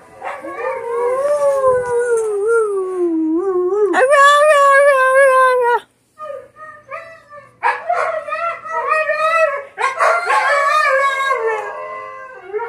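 Husky howling in long calls that slide up and down in pitch. After a short break about six seconds in, it goes on in shorter, choppier howls.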